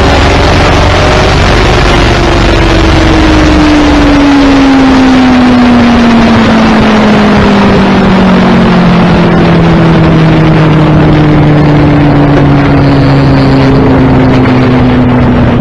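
Suzuki Hayabusa inline-four motorcycle engine running at speed under heavy wind rush on the microphone. The engine note falls slowly and steadily as the bike slows down.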